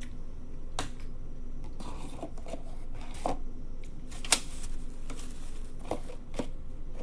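Scattered light clicks and knocks with brief rustling, from handling tableware and food containers at a meal; one sharper click about four seconds in is the loudest.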